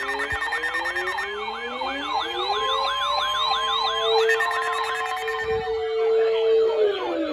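Several sirens sounding at once. A fast siren sweeps up and down about three times a second for the first four or so seconds. Under it, slower siren tones climb in pitch, hold one steady note for a few seconds, and fall away near the end.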